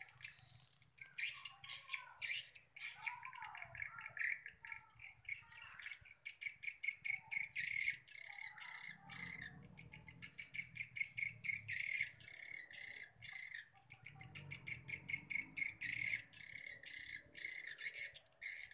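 Edible-nest swiftlets chirping in fast, rapidly repeated trills that go on and on, as heard around a swiftlet house. A faint low rumble lies underneath at times.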